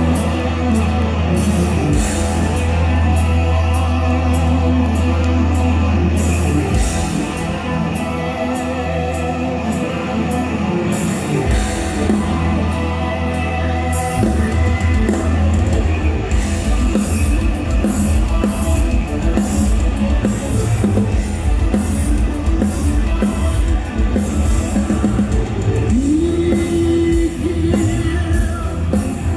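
Rock band playing live and loud, with sustained bass and guitar chords, then a drum kit pounding out a steady beat from about halfway through, and singing.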